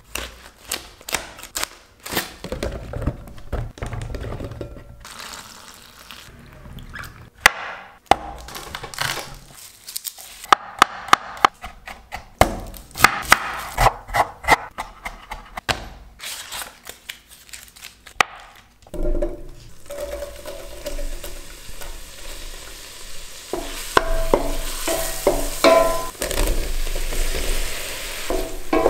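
A kitchen knife slitting plastic film and then chopping on a wooden cutting board: a quick run of sharp cuts and taps. From about two-thirds of the way through, sliced button mushrooms sizzle steadily in a pan while being stirred.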